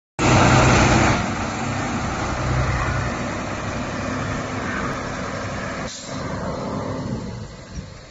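Sinotruk Howo 375 tipper truck's diesel engine running as the truck drives off, loudest in the first second and fading as it pulls away.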